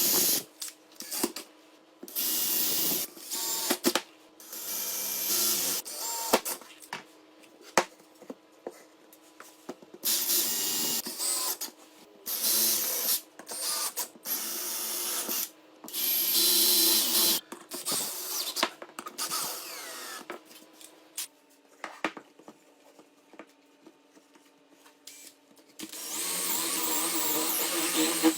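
A power tool working in repeated bursts of one to two seconds, each a loud hissing grind, over a steady low motor hum.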